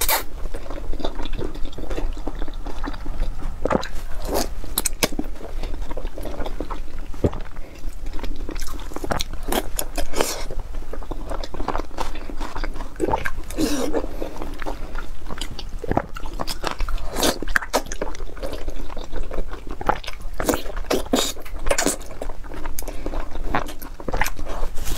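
Close-miked eating sounds: a person biting and chewing gelatinous, collagen-rich braised pork, with many short, irregular wet clicks and smacks of the mouth.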